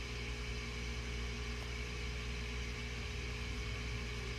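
Steady low machine hum with a faint high-pitched whine, unchanging throughout.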